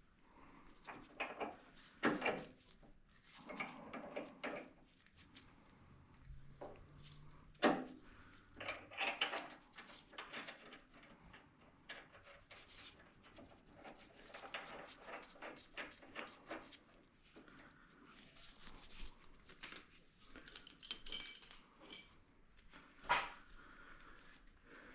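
Scattered metallic clinks and knocks of hand tools and parts being handled while working on a buggy's steering rack and its mounting clamps.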